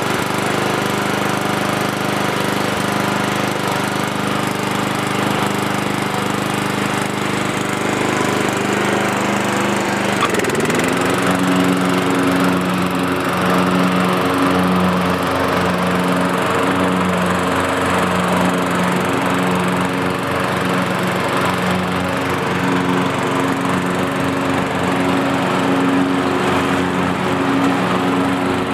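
Early-1990s Murray riding lawn mower's engine running just after starting, steady at first, then speeding up about ten seconds in and holding at the higher speed with a slight waver.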